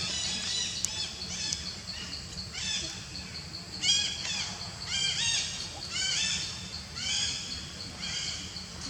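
Repeated short, high-pitched chirping animal calls, one or two a second, each rising and falling, over a steady fast-pulsing high tone.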